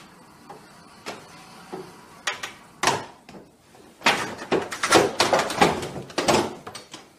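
A pet-door flap clattering and banging in its frame as a large animal squeezes through it. A few separate knocks come first, then a dense run of loud bangs and scrapes about four seconds in.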